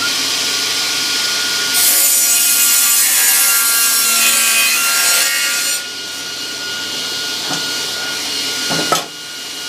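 Charnwood W619 table saw running at full speed and cutting through a thick piece of wood for about four seconds, the blade not slowing under the load, then running free with a sharp knock near the end.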